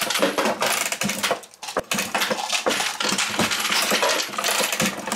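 Dillon 1100 progressive reloading press being cycled, with 9mm brass cases and loaded rounds clinking and rattling against metal in a dense, irregular stream of clicks.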